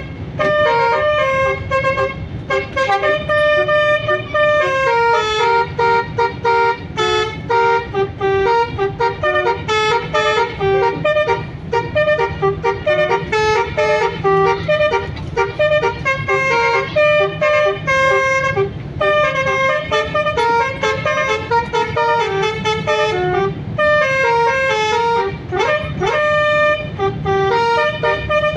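Multi-tone basuri telolet bus horn playing a long melodic tune, note after note in a steady run, with a quick upward sweep near the end, over a low engine rumble.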